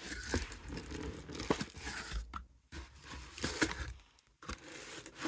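Paper and plastic packaging rustling and crinkling as it is handled, with a few small clicks and taps and brief pauses.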